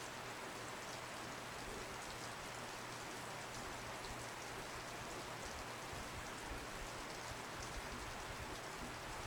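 Heavy snow falling steadily: a soft, even hiss with faint tiny ticks of flakes landing.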